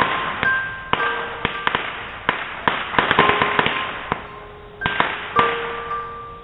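A string of firecrackers going off in rapid, irregular bangs over a constant crackling hiss, with held music notes underneath.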